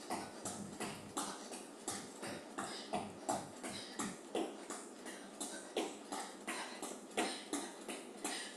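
Running shoes landing on a thin exercise mat in quick, even footfalls, about three a second, as she does low kicks, with hard breathing between them.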